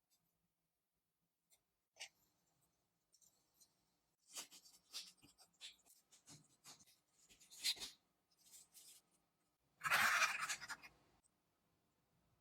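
Intermittent scratching and rubbing noises in short bursts, the longest and loudest about ten seconds in.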